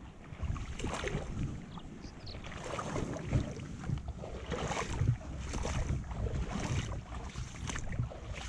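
Wind buffeting the microphone, a rough low rumble that rises and falls in gusts, with a hiss that comes and goes about once a second.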